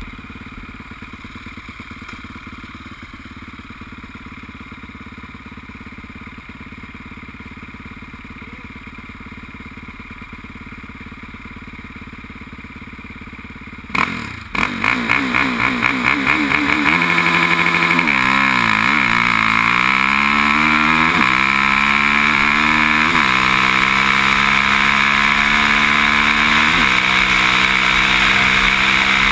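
Can-Am quad's engine running steadily at low revs for about fourteen seconds, then revved hard as the quad pulls away. It climbs in pitch and falls back several times as it shifts up through the gears while accelerating.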